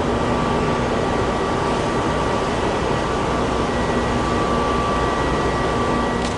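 Steady machinery drone from a large car ferry lying at its berth: a constant low rumble with a couple of thin, steady high whines on top, typical of a ship's generators and ventilation fans running in port.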